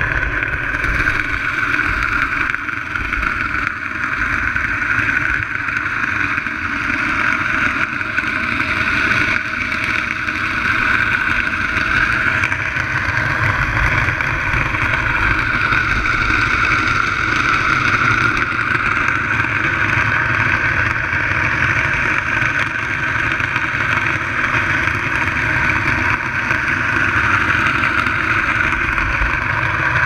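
Steady underwater noise picked up by a camera in a waterproof housing: a continuous even drone and hiss that does not change for the whole stretch.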